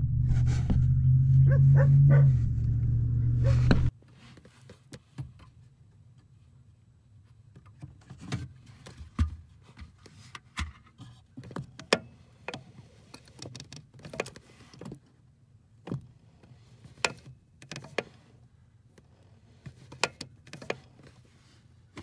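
Clutch pedal assembly of a 1995 Nissan Hardbody pickup clicking as the pedal is pushed in and let back: a series of sharp clicks at uneven spacing, from a part the owner cannot yet pin down. A loud low hum runs under the first four seconds and cuts off suddenly.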